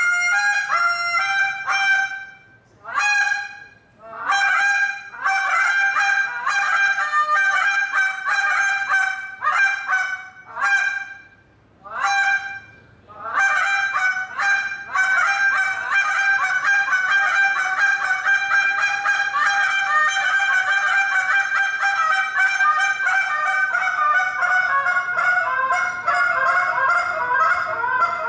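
A hand-blown goose call imitating Canada goose honks and clucks, with notes breaking between a low and a high pitch. It starts with separate honks and short phrases with brief pauses, then from about halfway turns into a fast unbroken run of clucks.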